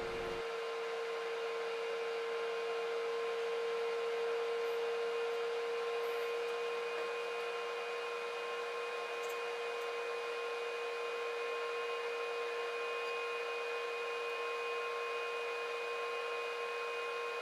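COMFEE FLASHWAVE air fryer toaster oven running in air-fry mode: its convection fan gives a steady whir with a constant mid-pitched hum.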